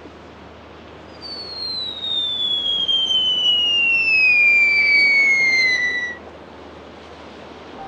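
A long descending whistle sound effect, gliding steadily down in pitch for about five seconds from a high start before cutting off, over a steady background hiss.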